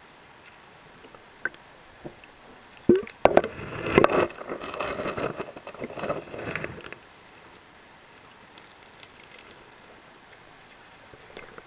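Muffled water sloshing and rubbing around a submerged camera, with sharp knocks, for about four seconds beginning some three seconds in. Faint hiss and a few isolated clicks before and after.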